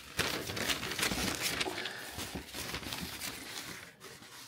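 Paper and packaging rustling and crinkling as sheets of delivery paperwork are handled and lifted out of a cardboard box over a foil-bubble insulated liner: irregular rustles and small clicks that die down near the end.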